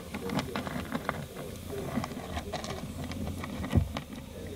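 A tabby cat getting at dry dog food: irregular small clicks and crunches of the kibble, with one soft thump near the end.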